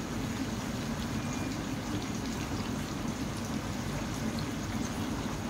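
Pot of pinakbet vegetables cooking in water on the stove: a steady simmering hiss.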